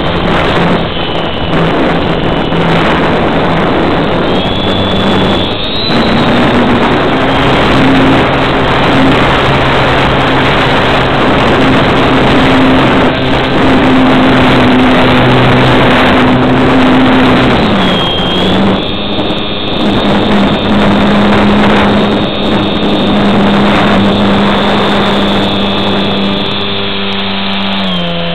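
Model airplane's motor and propeller recorded by a camera strapped under the plane in flight: a steady drone buried in heavy wind rush. The pitch steps up about six seconds in, drops back around eighteen seconds, and sinks again near the end.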